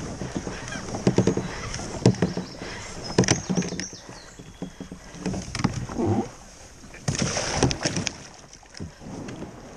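Sit-on-top kayak knocking and scraping against the branches of a fallen tree as it is forced over it, with a run of irregular sharp knocks.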